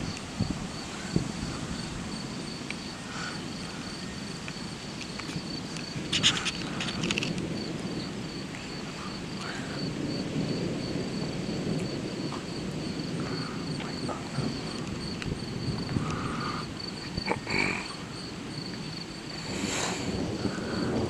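Insects chirping in a steady, evenly pulsing high trill, with a low rumble of distant thunder swelling a little in the middle and a few brief clicks.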